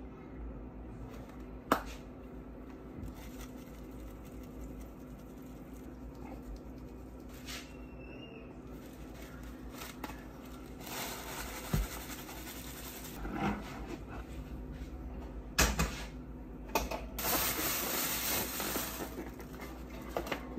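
Kitchen handling sounds over a steady low hum: a sharp click near the start, a few light knocks, then two stretches of dry rustling noise, about 11 and 17 seconds in, each lasting a couple of seconds.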